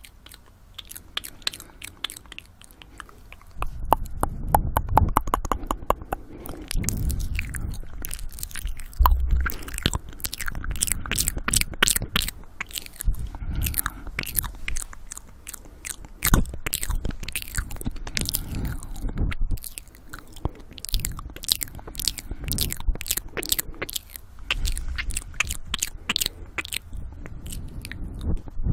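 Close-miked ASMR mouth sounds: rapid wet tongue and lip clicks and smacks in the ear-eating style, with heavy breathing on the microphone. Soft at first, then much louder from about four seconds in.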